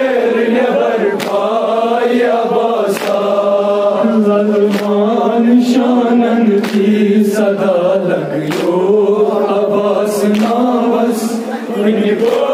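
A male voice chanting a noha, a mourning lament, through a microphone in long, slowly gliding phrases, with a group of men chanting along. Sharp strikes land every second or two, typical of hands beating chests in matam.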